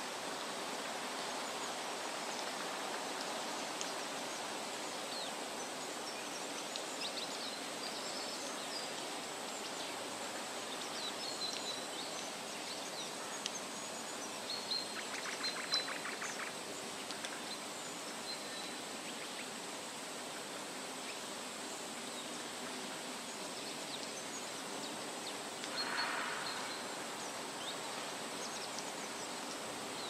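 Steady outdoor rushing hiss with small birds chirping now and then, short high calls scattered through it. About halfway through comes a quick rattling series of ticks, and near the end a brief louder call.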